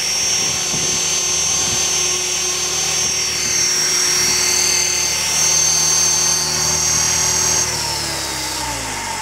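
Align T-Rex 500 radio-controlled helicopter hovering, with a steady high whine over the rotor noise. Near the end it sets down and the whine and rotor sound fall in pitch as the rotor spools down.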